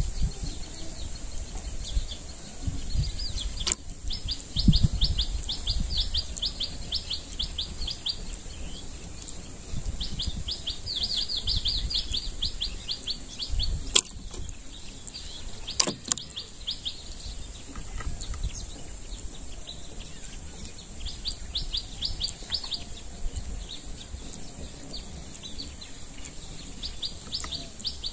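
A bird calling in bouts of fast, rattling trills a few seconds long, repeated several times, over a steady high hiss and a low gusty rumble, with a few sharp clicks.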